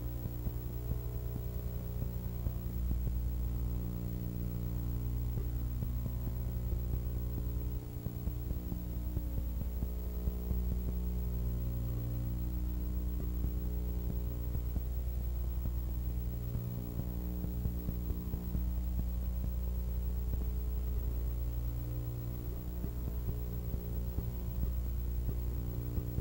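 Steady electrical mains hum, a stack of low tones that swells and fades slightly every few seconds, with no engine or crowd sound on the track.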